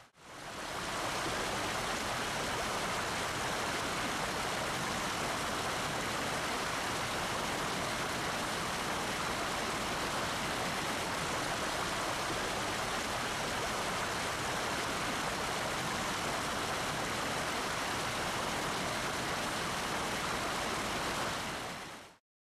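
Steady rush of water, even and unbroken, fading in at the start and fading out shortly before the end.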